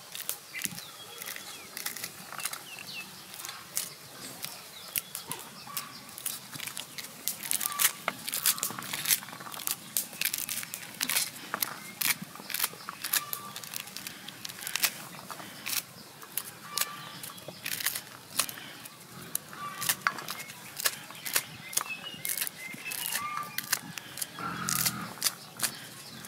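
Corn kernels being pried off the cob by hand: irregular sharp clicks and snaps, several a second, as kernels break loose and drop onto a stainless steel tray.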